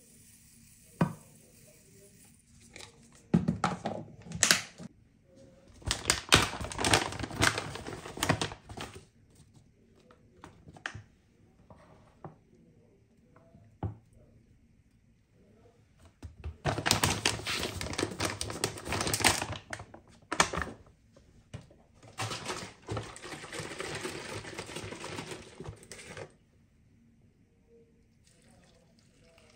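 Dry ingredients being tipped and scooped into a glass bowl of rolled oats: chia seeds rattling out of a plastic tub and protein powder spooned from a crinkly resealable bag. The sound comes in several rustling, rattling stretches of a few seconds each, with quiet between.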